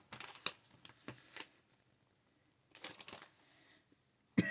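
Rustling and light clicks of packaged items being handled and moved about in a box, in short bursts, with a sharper click near the end.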